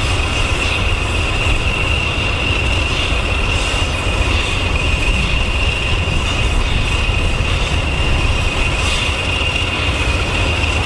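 A train of Class 20 diesels hauling an LNER B1 steam locomotive and coaches, moving slowly: a steady low rumble with a constant high-pitched whine over it.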